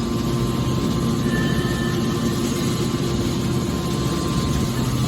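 Horizontal hydraulic metal baler running: a steady mechanical hum with a few constant tones over a rumbling noise, from its motor-driven hydraulic pump.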